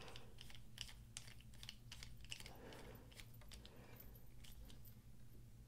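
A hand screwdriver clicking faintly and irregularly as it turns a small screw into a titanium frame lock folding knife during reassembly, with several clicks a second over a low steady hum.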